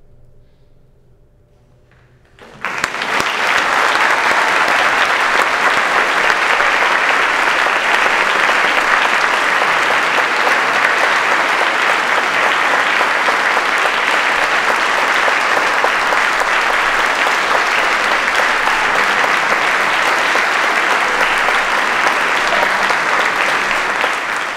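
About two and a half seconds of quiet, then a large concert audience breaks into loud, steady applause.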